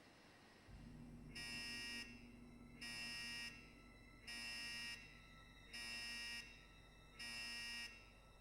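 An electronic buzzer sounding five times at an even pace, each buzz about half a second long, over a low steady hum.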